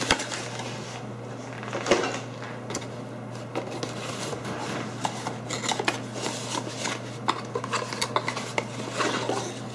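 Cardboard packing and boxed hardware being handled and pulled out of a shipping carton: irregular rustling, scraping and small knocks, with a clearer knock about two seconds in and a steady low hum underneath.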